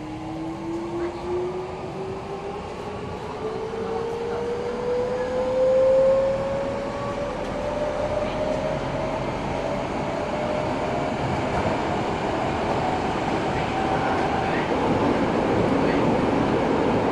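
Eidan 03 series subway car's VVVF inverter and traction motors whining, several tones rising together in pitch as the train accelerates, with wheel and running noise building beneath them.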